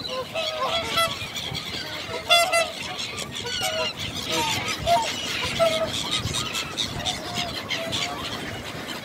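A flock of birds calling all together: many short, overlapping calls with no let-up.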